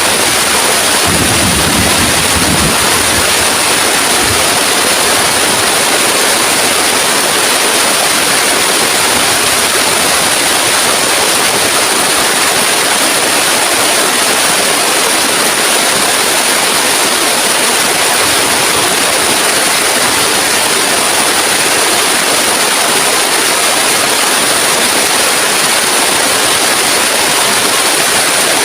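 Heavy rain pouring steadily as a dense, even hiss, with a brief low rumble in the first few seconds.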